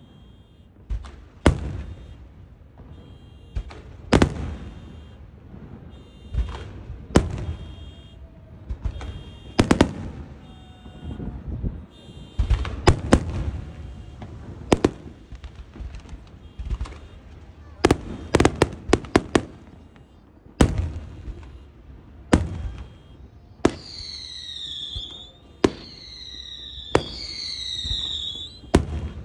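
Fireworks going off in irregular bangs and crackles, some much louder than others. In the first part a car alarm, set off by the noise, beeps in short repeated high pips. Near the end come three falling whistles about a second and a half apart.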